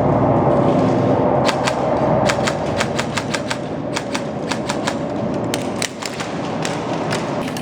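Airsoft guns firing: sharp clacking shots, singly and in quick runs, starting about a second and a half in, over a dense steady low rumble.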